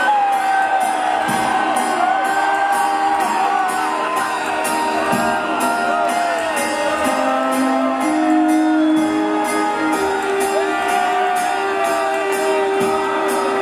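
Live rock band playing on a loud open-air stage: electric guitars and drums with a steady beat, singing, and whoops from the crowd.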